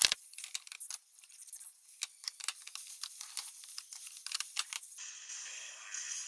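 Plastic makeup compacts and cosmetics clicking and tapping as they are picked up and set down on a table, opening with one sharp click. From about five seconds in, a steadier soft rustling takes over.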